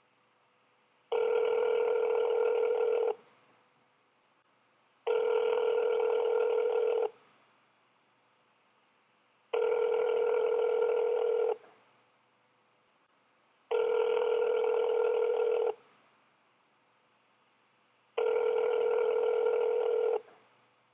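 Telephone ringback tone heard by the caller through a mobile phone's earpiece: five steady two-second rings with about two-second pauses, the call ringing without being answered.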